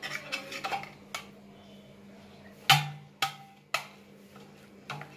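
Kitchen knife clicking and knocking against a stainless steel plate while cutting through a steamed egg cake: several sharp clicks spread out, the loudest about two and a half seconds in, over a faint steady low hum.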